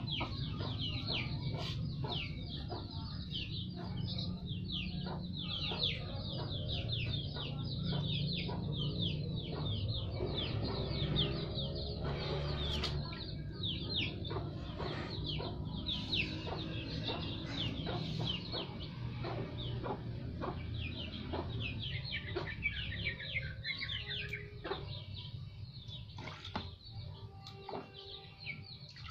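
Birds chirping constantly, many short falling peeps a second, over a low steady rumble, with scattered light splashes and knocks from a toddler playing with water in a plastic basin.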